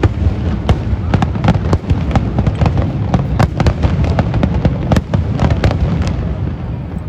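Fireworks show, with a dense run of sharp crackles and pops over a continuous low rumble of bursts.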